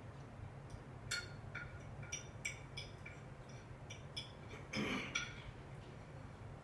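Utensil clinking and scraping against a plate, a string of short light taps with a louder, longer scrape about five seconds in, over a low steady hum.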